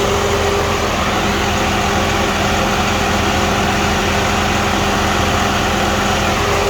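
Hyundai Mega Truck's diesel engine idling steadily with an even mechanical hum. A higher steady tone in the hum drops away about a second in and returns near the end.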